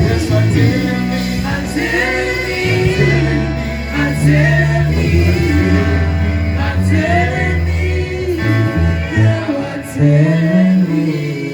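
Gospel worship music in a church service: voices singing together over a band, with a steady bass line and occasional drum hits.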